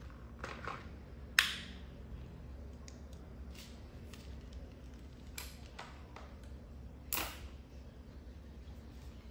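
Handling clicks from a gas airsoft bolt-action sniper rifle being worked: a sharp metallic clack about a second and a half in, a few lighter clicks, and another clack about seven seconds in.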